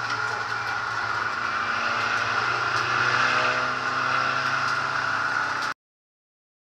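In-car sound of a SEAT Ibiza SC Trophy race car at speed: the engine running steadily with road and cabin noise. It cuts off suddenly near the end.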